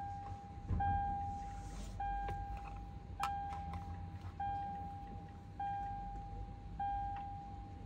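A repeating electronic warning beep, one long steady tone about every 1.2 seconds, with a sharp click about three seconds in.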